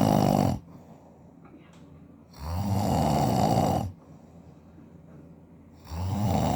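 A man snoring loudly in his sleep, each snore a coarse rattle lasting about a second and a half. One snore ends about half a second in, a full one comes in the middle, and another starts near the end, about three and a half seconds apart.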